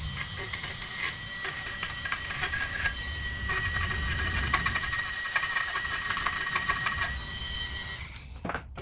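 Dremel rotary tool with a small wire brush attachment running against a rusty antique key, scrubbing off scale: a steady whine with a scratchy crackle of the bristles on the metal. It stops about a second before the end.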